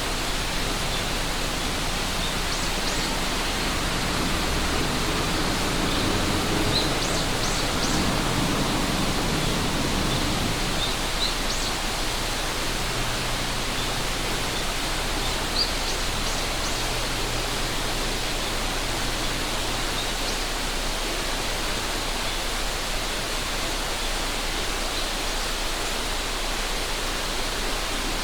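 River water rushing steadily, with short high chirps now and then over it.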